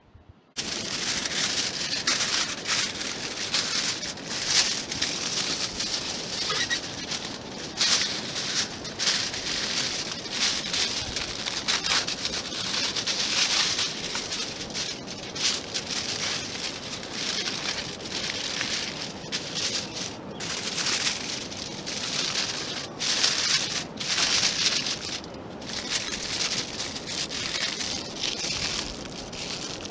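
Aluminium foil being folded and crumpled by hand around a fish: a continuous crinkling rustle with irregular sharp crackles, starting about half a second in.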